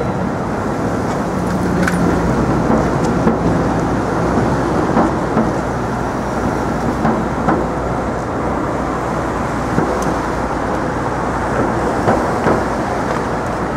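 Busy city street ambience: a steady traffic rumble with scattered small knocks and clatter and a faint steady whine.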